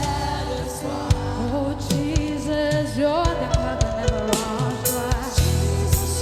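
Gospel worship music: singing with gliding vocal runs over a band, with drum hits and a full low end.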